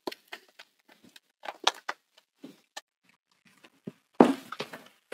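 Plastic shrink wrap being peeled by hand off a cardboard board-game box: scattered crinkles and light taps, with the loudest crinkle about four seconds in.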